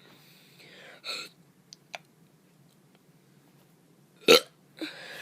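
A child's short forced burps: a soft one about a second in and a sharp, much louder one near the end. Between them come two faint clicks, and breathy noise follows near the end.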